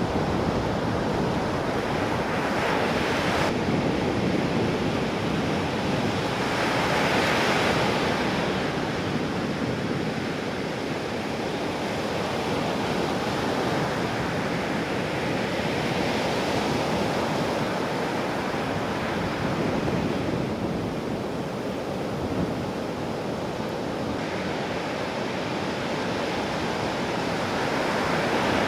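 Ocean surf from a big typhoon swell: a continuous rushing of breaking waves that swells louder several times as waves crash, with wind buffeting the microphone.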